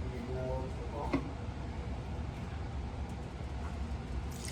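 Steady low background hum with a faint clink about a second in.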